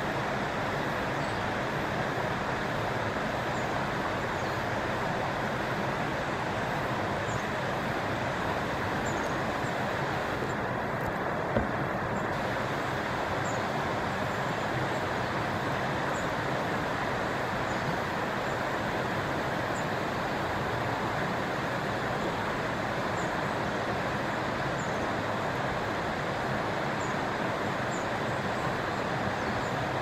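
Steady rush of a shallow river flowing around stepping stones, with faint short high chirps scattered through it and a single sharp click near the middle.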